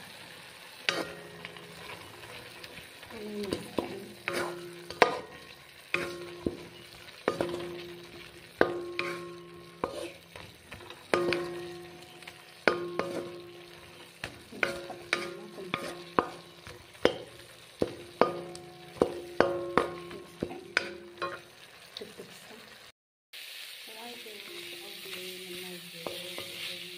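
Stir-frying of pork with dry bamboo shoots: a metal utensil strikes and scrapes the pan in repeated clanking strokes, roughly one or two a second, each with a short metallic ring, over a steady sizzle. The stroking stops about 21 seconds in, and after a brief dropout only the sizzle carries on.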